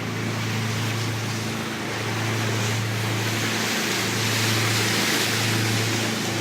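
Boat engine running with a steady low drone, under a broad rush of wind and water that swells a little in the middle.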